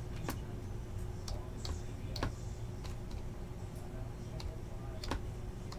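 Irregular light clicks, a dozen or so over a few seconds, over a faint steady hum.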